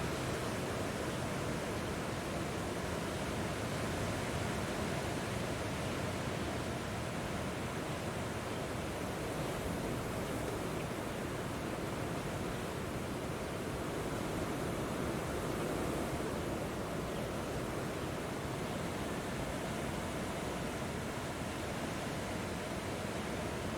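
Strong wind blowing, a steady rushing noise with only slight swells in loudness.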